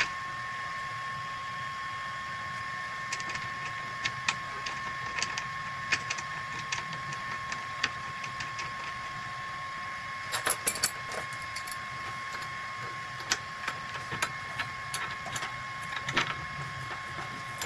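Steady high electrical whine from the powered-up CNC router, with scattered small clicks and taps from fitting a V-bit into the trim router, including a quick cluster of clicks about ten seconds in.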